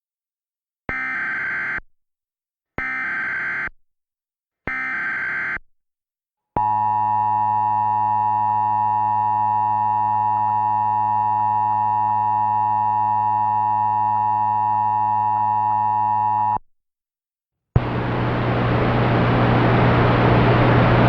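Emergency Alert System tones: three short bursts of SAME header data, each about a second long, then the two-tone EAS attention signal held steady for about ten seconds and cut off abruptly. About a second later a hiss with a low hum comes in, the open audio before the voice message.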